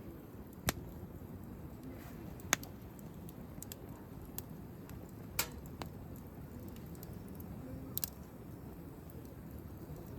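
Wood campfire crackling, with sharp single pops from the burning wood about seven times, irregularly spaced, over a low steady rumble.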